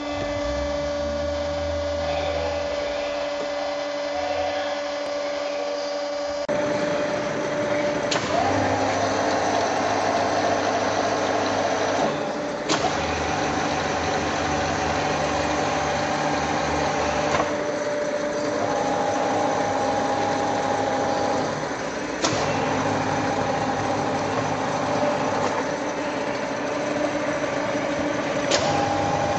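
Komunaras 67K25V universal milling machine running: a steady motor and gearbox hum with a whine that changes pitch several times. Each change comes with a sharp click.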